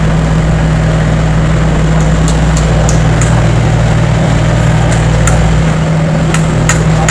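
Yanmar inline four-stroke diesel engine of a TATSUO JP75-8 mini excavator running steadily while it digs, with a scattering of short sharp clicks and knocks over it.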